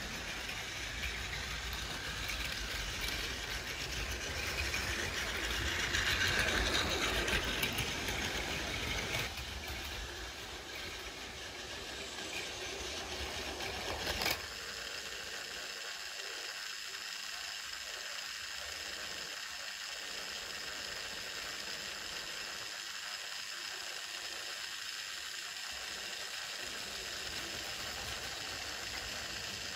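Battery-powered Plarail toy train running on plastic track: a small electric motor's steady whine and the wheels' rattle. It grows louder about six seconds in and eases off. After a sharp click about fourteen seconds in it runs on quieter and even.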